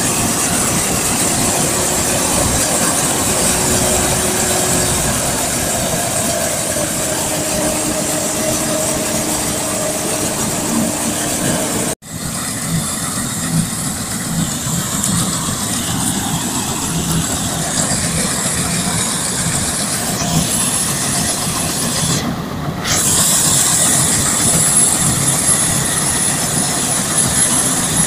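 SK-5 Niva combine harvester running while it harvests: a steady, loud mechanical din of the diesel engine, the threshing gear and the straw chopper. There is a sharp break in the sound about twelve seconds in, and after it a thin high whine runs over the noise.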